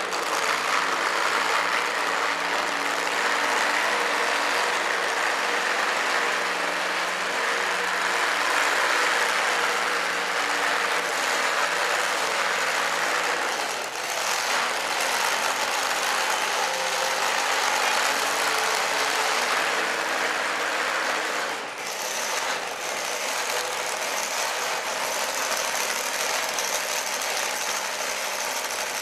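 Supercharged engine of a two-wheel-drive pulling truck idling steadily as the truck moves slowly.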